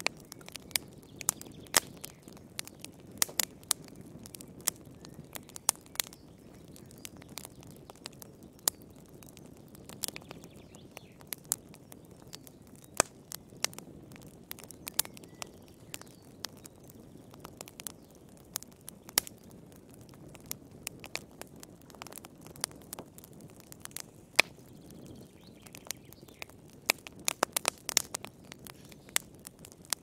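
Log fire crackling in a fireplace: irregular sharp pops and snaps over a steady low rush of burning, with a quick run of crackles near the end.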